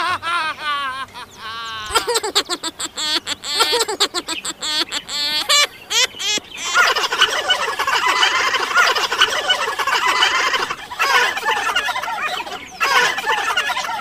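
Bird calls: wavering warbled notes, then a run of quick clicks with short warbles, then a dense, continuous chatter from about halfway, which breaks off briefly before starting again near the end.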